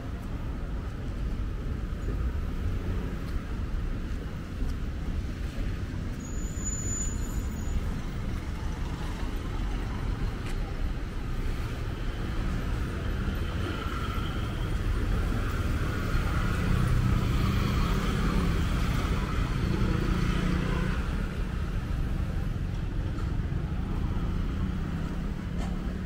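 Road traffic on a city street: a steady rumble of passing cars that swells about halfway through as vehicles go by close.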